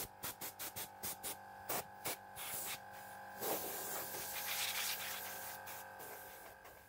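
Compressed-air blow gun blasting sawdust out of a bandsaw's wheel housing: a quick run of short puffs, then one longer hiss that fades away. Background music plays underneath.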